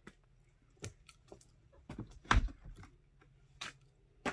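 Soft rustles and scattered light taps of a cat moving about on a carpeted cat tree, with one heavier thump about two and a half seconds in.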